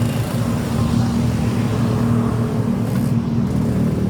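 Bus engine running steadily with a low, even hum.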